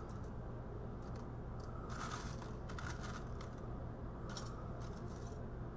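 Small pieces of tumbled circuit board and gold-plated pins clinking and scraping against each other and a screen as a hand stirs through them in a plastic pan, in irregular clusters of clicks over a steady low hum.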